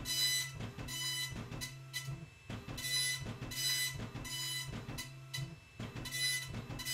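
Epson colour dot-matrix printer printing, its print head shuttling across the paper in short passes. Each pass is a high, raspy buzz from the firing pins, with clicks between passes as the carriage turns and the paper steps forward, over a steady low motor hum.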